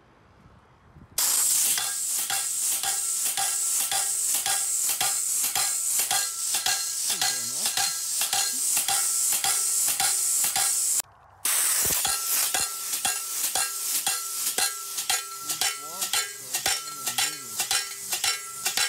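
Pneumatic post pounder hammering a steel T-post into the ground: a fast, even run of sharp metal blows, about four a second, with the hiss of air and a ringing from the steel post. It stops for a moment after about eleven seconds, then starts again.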